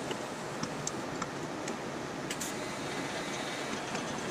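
Steady hiss of a TIG welding setup at rest, with a few light clicks and a short crackle about two and a half seconds in; the arc is off and the freshly welded part is cooling in the vise.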